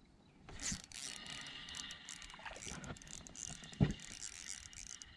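Spinning reel cranked steadily, its gears whirring as line is reeled in after a short swish, with a single low thump about four seconds in.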